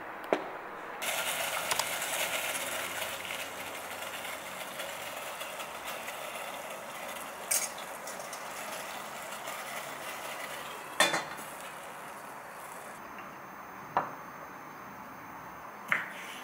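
Steady hiss of a steel steamer pot of boiling water steaming salted egg yolks, with metal tongs clinking against the pot and bowl a couple of times. Near the end come two knocks of a knife cutting squid on a wooden chopping board.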